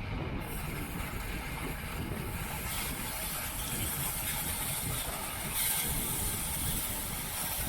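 Steady wind rush and road noise from a road bike riding at race speed, heard through a bike- or rider-mounted camera's microphone, with a brief rise in the hiss about six seconds in.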